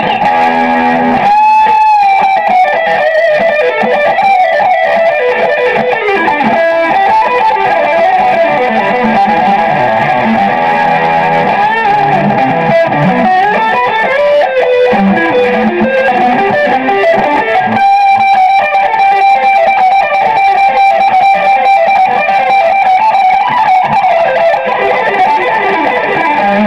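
Stratocaster-style electric guitar played through an amp: a lead line of single notes with string bends and vibrato on long held notes. It is being test-played to check the neck after a truss rod replacement.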